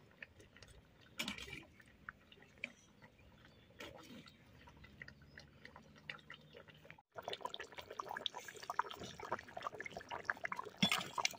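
Mutton curry simmering in a pot, with faint bubbling and small pops. After a short break about seven seconds in, the popping is denser.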